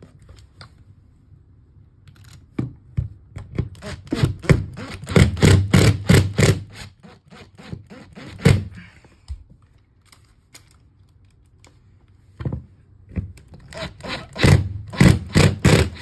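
Makita 18V cordless impact driver clattering as it drives screws into the storm door's closer bracket, the trigger worked in short bursts. One run of bursts lasts about six seconds, then a pause, then a second run near the end.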